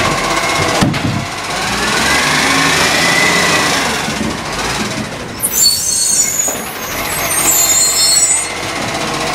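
Side-loading garbage truck creeping forward, its diesel engine rising in pitch, then a loud hiss with squealing tones from the air brakes for about three seconds past the middle as it stops at the bin.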